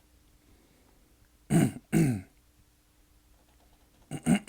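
A person clearing their throat in short two-part bursts: once about a second and a half in, and again near the end.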